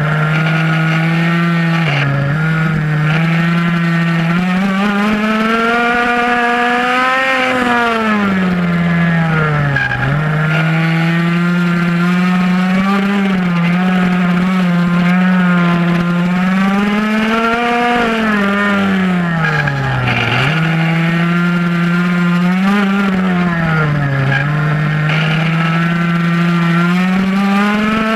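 Two-stroke minimoto (pocket bike) engine at racing revs, heard close from an onboard camera. The pitch climbs on each straight and drops sharply as the rider shuts off for the corners, about four times over.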